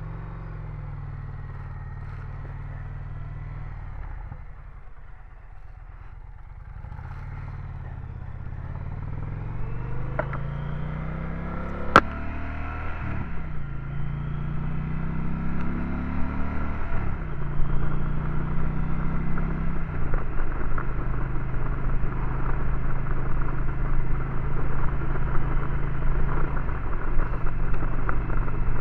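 Motorcycle engine accelerating through the gears, heard through a smart helmet's built-in microphone: its pitch climbs and drops back at each upshift, several times over. Wind noise builds as speed rises, and there is one sharp click about halfway through.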